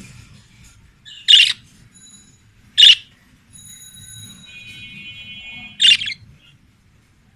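Budgerigars calling: three short, loud, harsh chirps about a second and a half apart, with quieter steady warbling between them.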